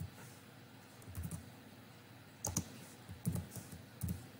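Keystrokes on a computer keyboard, typed in a few short clusters about a second apart.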